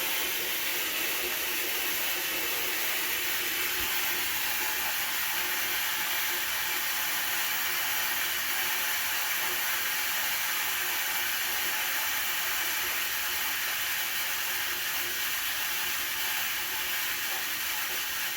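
Culligan water softener in its regeneration cycle: a loud, steady hiss of water rushing through the control valve, with a faint high whistle in it. The uploader calls it extreme noise and questions whether it should be this loud.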